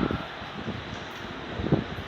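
Steady hiss of heavy rain and wind on the microphone, with two short low thumps, one just after the start and one near the end.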